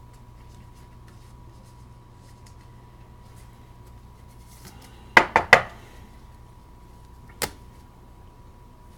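Sharp clicks and taps from handling trading cards and plastic card holders on a tabletop: three close together a little past five seconds in and a single one about two seconds later, over a faint steady hum.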